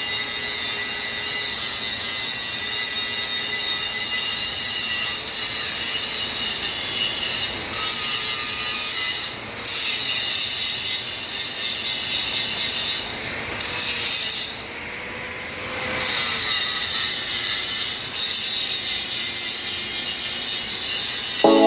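A motor-driven machine running with a steady high-pitched grinding hiss over a hum that wavers in pitch. The noise eases briefly a few times and for a longer stretch in the second half, and a short loud clunk comes at the very end.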